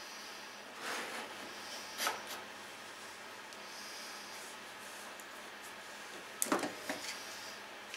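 Workshop handling noises over a steady faint hiss: a plastic glue bottle squeezed and then set down with a sharp knock about two seconds in, and a short cluster of clacks near the end as bar clamps are picked up.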